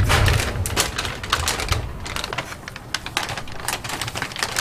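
A plastic carrier bag rustling and crinkling in irregular crackles as it is handed over and opened, with a low bump right at the start.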